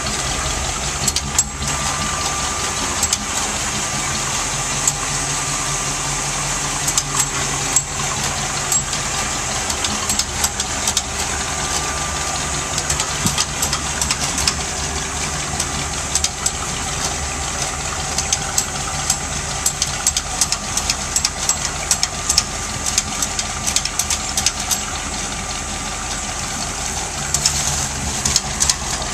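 Engine of a Diamond T flatbed truck idling steadily, with faint scattered ticking over it.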